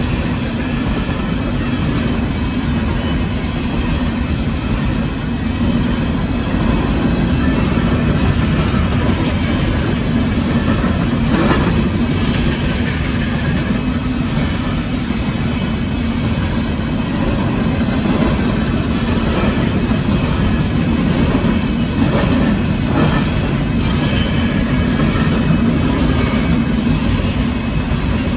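Loaded coal cars of a Union Pacific freight train rolling past close by: a loud, steady rumble and rattle of steel wheels on the rails, with a couple of brief louder moments partway through.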